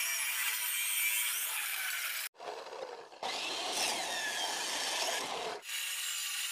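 Abrasive chop saw's cutting wheel grinding through mild-steel angle iron: a steady high-pitched whine over a hiss. The sound drops out briefly just after two seconds in and changes abruptly again near the end.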